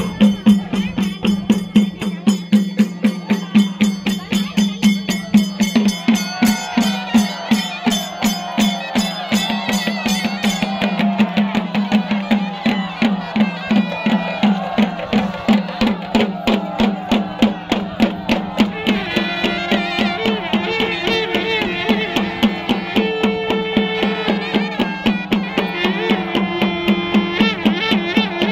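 Traditional South Indian festival drumming: a drum ensemble playing a fast, driving beat for ritual dancing. A wavering melody comes in over the drums about six seconds in.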